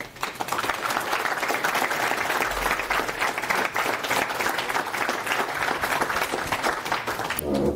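Lecture-hall audience applauding after a talk, a steady patter of many hands clapping that stops just before the end.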